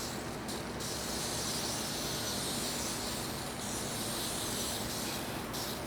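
Aerosol can of Easy Off oven cleaner spraying in one long hiss of about five seconds, starting about a second in after a brief short spray, over a steady low background hum.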